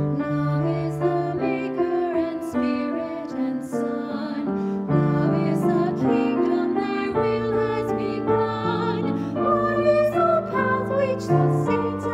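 A woman singing a hymn, accompanying herself on a grand piano, her voice wavering slightly over held piano chords.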